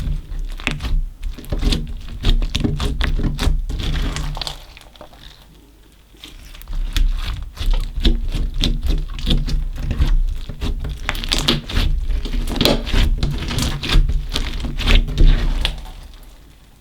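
Slime mixed with small coloured beads being squeezed and kneaded by hand: rapid sticky clicks and pops in two long bouts, with a short pause about five seconds in.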